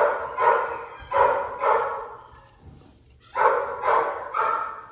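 Adult Airedale Terrier bitch barking repeatedly from behind a closed door, wanting to get back to her puppies. There are seven barks: a run of four, a pause of about a second and a half, then three more.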